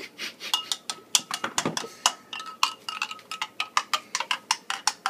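Metal spoon clinking quickly against a glass, about five strikes a second, each with a short ring, as it stirs a drink.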